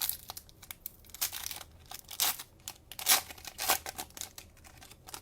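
Cellophane wrapper of a trading-card cello pack crinkling and tearing as it is opened: a run of sharp, irregular crackles, loudest about three seconds in.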